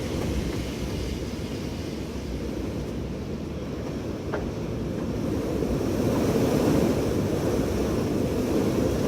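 Strong wind blowing and buffeting the microphone in a steady low rush, which swells louder about six seconds in.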